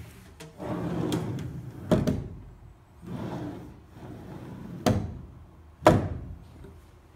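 Plastic-panel enclosure doors of a benchtop CNC mill being swung shut, with the panels rustling and three knocks as they meet the frame and each other; the last knock, near the end, is the loudest.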